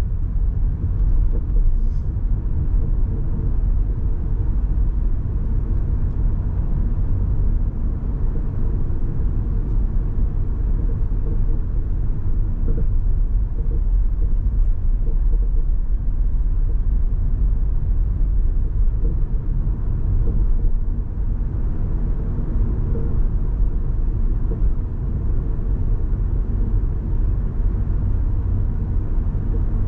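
A car driving: a steady low rumble of road and engine noise that holds even throughout.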